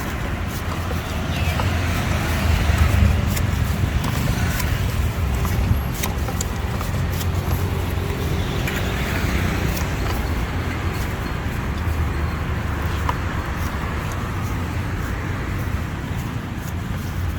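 Road traffic passing close by: a steady low rumble of cars, with scattered light clicks over it.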